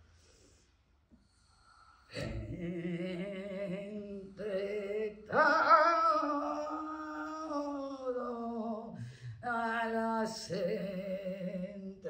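A single voice singing or chanting wordlessly with no accompaniment, starting about two seconds in and holding long notes, one of them for several seconds, with a slight waver in places.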